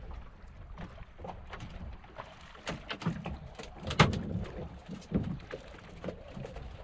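Sea water lapping and slapping against the hull of a small open fishing boat, with scattered knocks and splashes. The loudest, a sharp knock or slap, comes about four seconds in.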